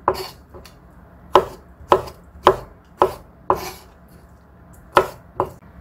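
Kitchen knife slicing blanched fresh seaweed stems into thin strips on a wooden cutting board: about eight sharp knocks of the blade meeting the board, roughly one every half second, with a pause of over a second before the last two.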